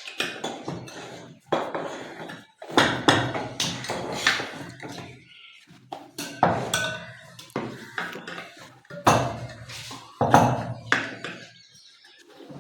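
Metal tyre levers clanking and scraping against a motorcycle wheel rim as the tyre is levered onto it: irregular knocks, some with a short metallic ring.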